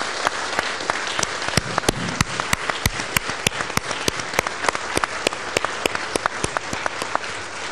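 Audience applauding: a steady wash of many hands clapping, with a few sharp, loud single claps close by standing out above it; it begins to ease off near the end.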